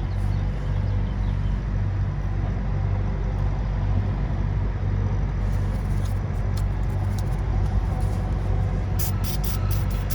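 Steady low engine hum, like a vehicle idling close by. About nine seconds in there is a quick run of light metallic clicks as brake parts are handled.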